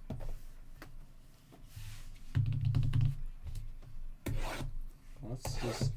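Trading-card boxes and packs being handled on a table: cardboard and wrapper rubbing and scraping, with light knocks and a heavier bump about two and a half seconds in.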